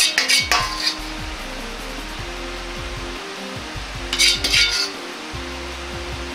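Metal ladle clinking against a wok in quick runs of light strikes while scooping sweet-and-sour sauce, once at the start and again about four seconds in.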